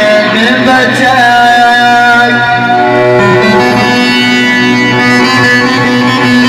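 Loud Middle Eastern instrumental music: a melody in long held notes over a steady low note, with no singing.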